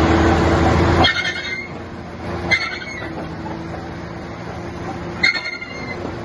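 Komatsu D155 bulldozer's diesel engine running loud, then dropping sharply about a second in to a lower steady run. Three short, high metallic squeals come over it, like steel on steel.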